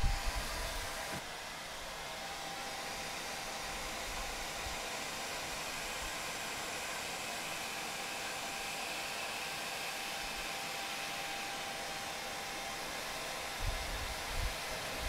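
A JMW handheld hair dryer runs steadily, with an even rushing of air and a faint steady whine, as it blows water out of the stem holes of wet mechanical keyboard switches. A few low bumps come at the very start and again near the end.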